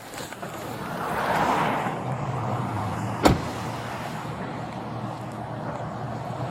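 Road traffic noise, swelling about a second in as a car goes by, with one sharp click about three seconds in.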